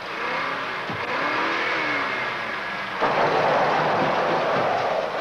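A vehicle engine running with its pitch rising and falling. About three seconds in, a sudden louder rush of noise breaks in and carries on.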